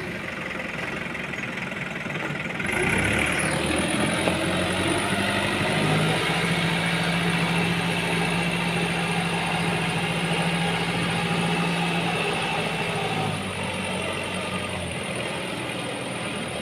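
New Holland TT4.90 tractor's diesel engine running as the tractor drives across the yard, its note getting louder about three seconds in and easing off near the end.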